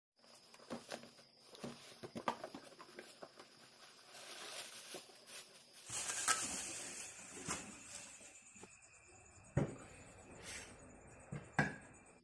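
Crown JH108 being handled: irregular clicks and knocks over a faint, steady high-pitched whine.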